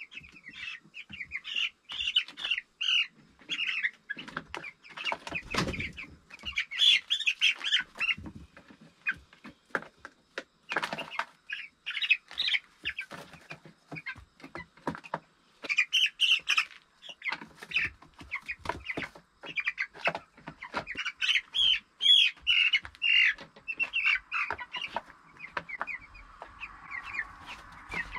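Broiler meat chicks peeping over and over in short, high chirps while they are caught and piled into a carrier, with wing flaps and scattered knocks from the handling.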